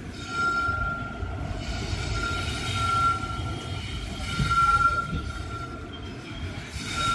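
Passenger express train running over the rails with a low rumble of wheels. Above the rumble a steady high-pitched squeal comes from the wheels and swells and fades several times.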